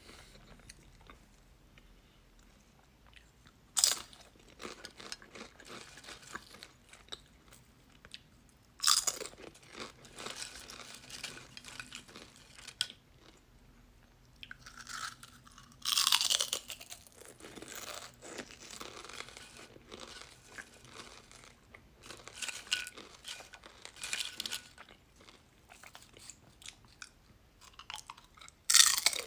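Crunchy chips being bitten and chewed: a few loud crunching bites, each followed by a run of quieter irregular crunching as they are chewed.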